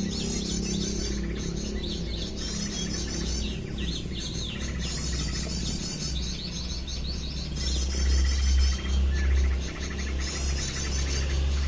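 Bird calls played through a speaker as a lure: high chirping phrases repeated over and over in much the same shape, over a low steady rumble that grows louder near the end.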